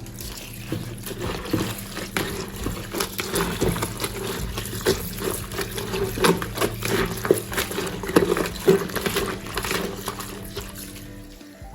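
Water splashing and sloshing in a basin in irregular strokes as clothes are pushed down into soapy water to soak.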